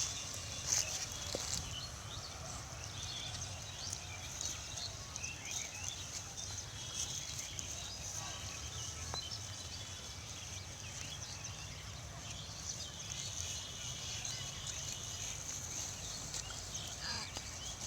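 Pig barn ambience: livestock moving and making noises, with scattered short clicks and knocks over a steady high hiss.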